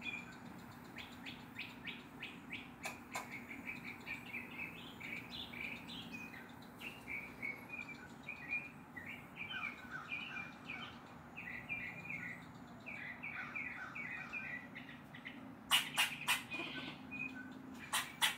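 Squirrel barking: a long run of short, sharp chirping calls repeated several times a second. A few loud clicks come near the end.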